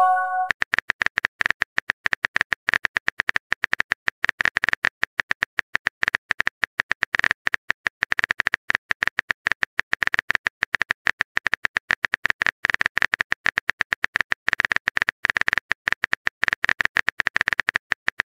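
Rapid, unbroken clicking of a phone keyboard typing sound effect, one short click per keystroke, as a chat message is typed out.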